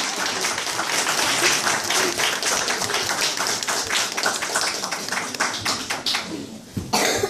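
Audience applauding, many hands clapping at once, thinning out toward the end.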